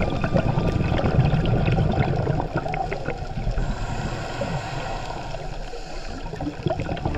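Underwater sound of a dive: a low rushing bubble noise from a scuba diver's exhaled air for about the first two and a half seconds, then quieter water noise with scattered faint clicks.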